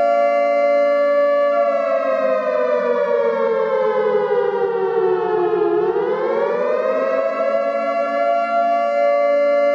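Warning siren sounding a steady chord-like tone. From a second or two in its pitch sinks slowly for about four seconds, then swings quickly back up and holds steady again.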